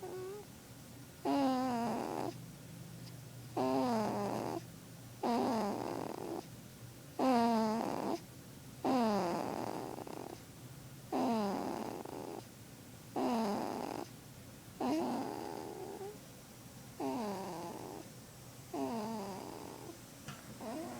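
Snoring in a steady rhythm: about eleven breaths, one every two seconds or so, each a short whistling tone that falls in pitch.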